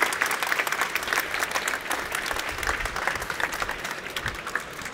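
Audience applauding: a dense patter of many people clapping, easing off slightly near the end.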